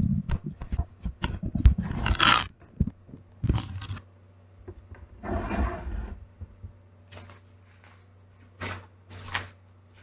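Irregular scraping and rustling with many small knocks, over a faint steady low hum.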